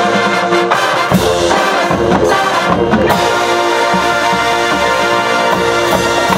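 High school marching band playing its field show: brass and percussion, with several percussion hits in the first half, then the brass holding full sustained chords.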